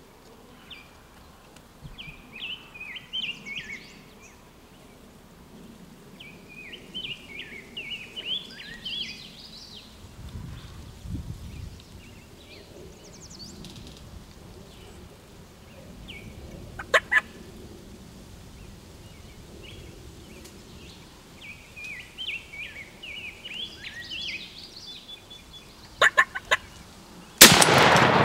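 Wild turkey tom gobbling several times, each gobble a quick rattling call. A few sharp clicks come between the gobbles, and near the end a single very loud shotgun blast rings out and drops the tom.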